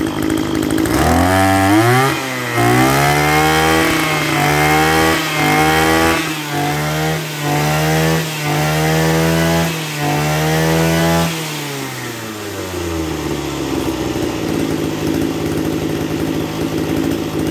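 Maruyama BP2520M brush cutter's 25.2 cc engine revved from idle up to full throttle, held high with several brief dips in speed, then falling back to a steady idle about eleven seconds in.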